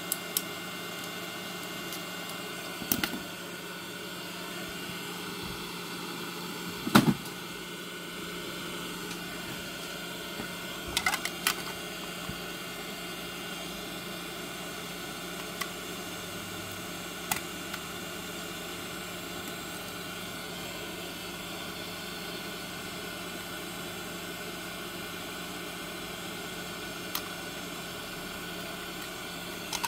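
Steady background hiss and hum, with scattered light clicks and taps as the plastic housing parts of a Sonoff S20 smart plug are handled. The sharpest knock comes about seven seconds in, with a small cluster of clicks around eleven seconds.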